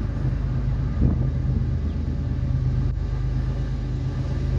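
Steady low rumble of an approaching freight train's diesel locomotives, with a short thump about a second in.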